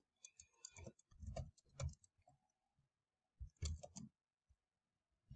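Faint computer keyboard keystrokes in short, scattered clusters as words are typed.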